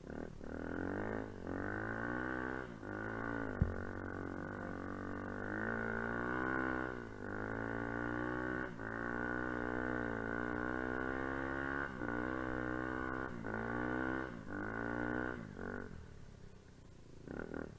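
Enduro dirt bike engine revving as it is ridden through deep snow. Its pitch rises and falls with the throttle and drops out briefly every second or two. There is a single sharp knock about three and a half seconds in, and the engine eases off near the end.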